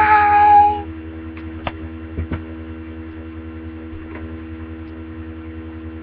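A short, high-pitched vocal squeal held for under a second at the start, then a steady electrical mains hum with a few faint clicks.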